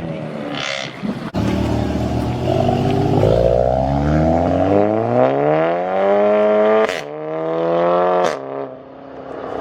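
A modified car's engine and exhaust accelerating hard as the car pulls away, the engine note rising steadily for several seconds. Two sharp cracks, about seven seconds in and again a second and a half later, come as the pitch drops at each gear change.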